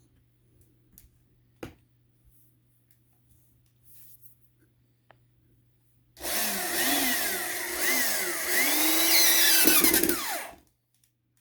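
Power drill driving a screw into the wooden hive box, running for about four seconds from about six seconds in, its motor pitch rising and falling as the load changes. A single sharp click comes earlier.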